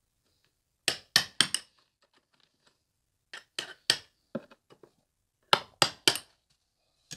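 Steel SDS chisel bit chipping hardened dot-and-dab plaster adhesive out of a hole in a plasterboard wall: sharp dry clinks in quick groups of three or four, with pauses between.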